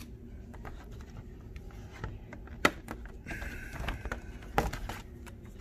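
Stiff clear plastic blister packaging being pried open and handled: scattered sharp clicks and crackles, the loudest a little before halfway, with a short scraping rasp just after halfway.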